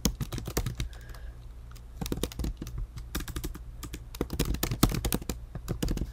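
Computer keyboard typing in quick runs of key clicks, with short pauses about a second in and again past the middle, over a steady low hum.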